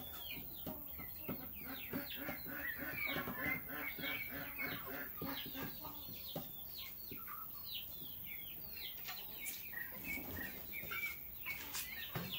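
Chickens clucking in a steady run of short, repeated calls that thins out after about ten seconds.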